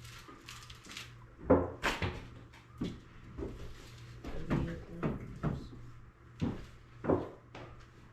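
A series of knocks and bumps as household items are handled and set down, about nine in all, the loudest about one and a half seconds in.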